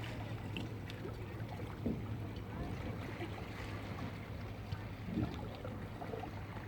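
Yacht-harbour ambience: a steady wash of water and wind noise over a constant low hum, with a few faint clicks and knocks.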